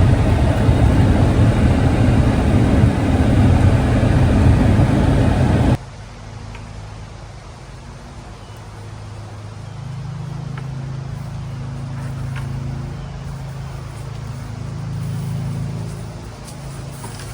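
Loud rumbling vehicle noise that cuts off abruptly about six seconds in. A much quieter low engine hum follows, rising and falling gently.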